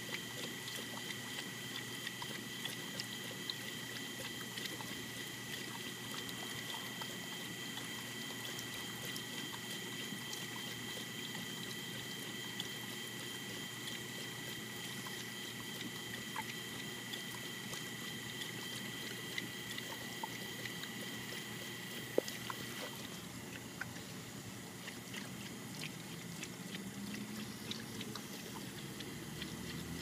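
Pit bull lapping at the running stream of a stainless-steel drinking fountain: many small wet tongue clicks over the steady trickle of water, with a faint steady high whine that partly drops out about two-thirds of the way through.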